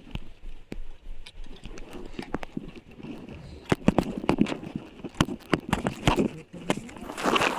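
Irregular knocks and clicks, some close and sharp, with a muffled voice near the end.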